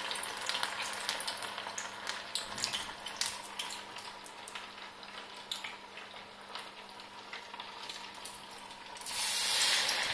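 Rice-and-semolina vadas (garelu) deep-frying in hot oil in a kadai: a steady sizzle full of small crackles and pops, with a louder rush of sizzling about nine seconds in.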